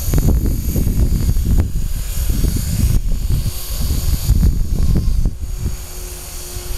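Electric Align T-Rex RC helicopter hovering and skimming low over the ground, its motor and rotor giving a steady high whine over an uneven low rumble.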